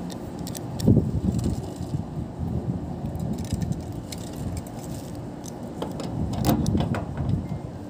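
Metal clinks and scrapes of pliers working the nut on the service valve of a split air conditioner's outdoor unit, with a sharp knock about a second in, over a steady low background rumble.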